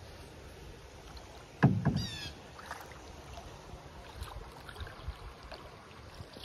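A single hollow knock against the canoe's hull about a second and a half in, with a short ringing tail. Just after it comes a brief bird call of quick falling chirps.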